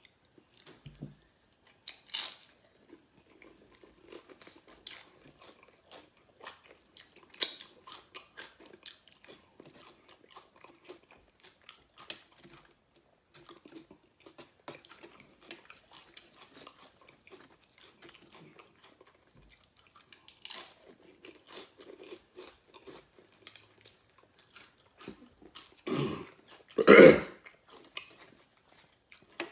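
A person chewing and crunching tortilla chips close to the microphone, with scattered crisp crunches throughout. Near the end come two louder sounds.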